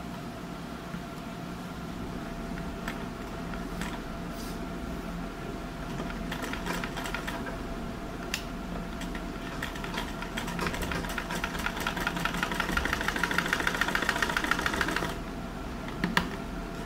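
Vintage black sewing machine stitching a seam through orange fabric. Scattered clicks give way, from about six seconds in, to a fast, even clatter of stitches that grows louder and denser. The clatter stops abruptly near the end and is followed by a couple of single clicks.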